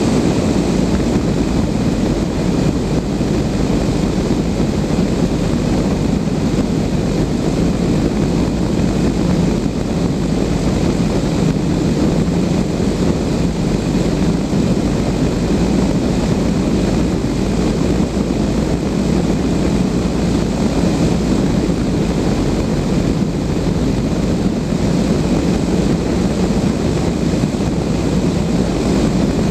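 Steady rush of airflow around a Blanik L-13 glider in flight, an even, unchanging wind noise.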